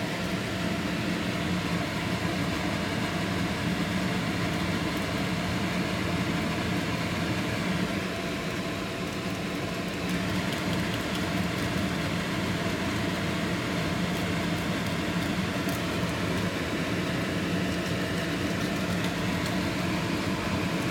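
Steady mechanical hum of a small motor running, with a few faint clicks over it in the second half.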